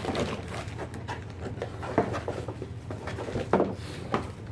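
Rustling and handling noises as items are taken from a cardboard rifle box, with a few sharper knocks about two and three and a half seconds in.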